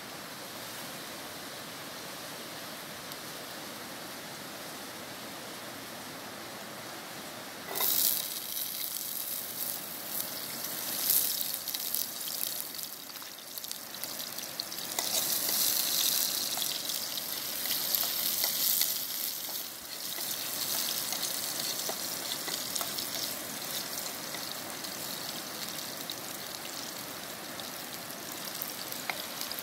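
Sliced garlic and shallots frying in hot oil in a frying pan: the sizzle starts suddenly about eight seconds in and keeps going, loudest in the middle and easing a little near the end. Before it there is only a steady background hiss.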